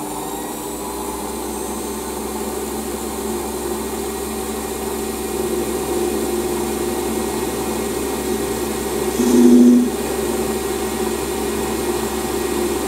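Metal lathe running steadily while a trepanning tool feeds into the end face of a spinning metal workpiece, cutting a groove to depth. About nine seconds in, a louder tone rises over the hum for about half a second.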